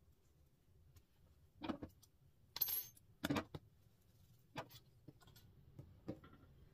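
A pair of metal scissors being handled and set down on a wooden tabletop: a handful of sharp clicks and knocks, one with a brief metallic clink near the middle.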